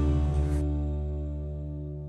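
Background music: a final sustained chord of plucked or struck notes ringing out and fading away.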